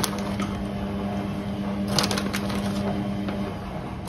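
A steady hum that stops about three and a half seconds in, with a few light clicks and crackles from kitchen handling about halfway through.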